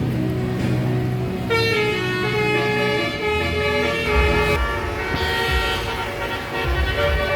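Bus telolet horn (Basuri multi-tone air horn) playing a melodic run of changing toots from about a second and a half in, sounding again near the end, with the bus engine rumbling underneath.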